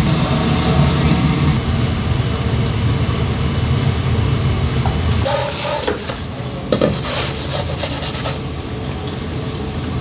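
A low, steady kitchen rumble, then from about five seconds in a short noisy burst and a run of clatter as a hot earthenware pot of braised short ribs is set down on its base on a wooden table.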